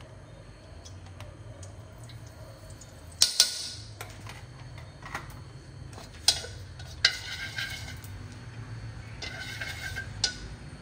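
Kitchen utensil clatter: a spoon clinking against a plastic cup, and wooden chopsticks knocking and scraping in an aluminium wok of oil, as a handful of sharp clicks with the loudest pair about three seconds in. A steady low hum runs underneath.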